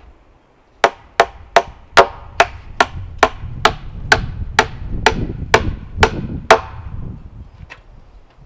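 A hammer striking about fourteen times at a steady pace of roughly two and a half blows a second, each blow sharp and ringing, then stopping.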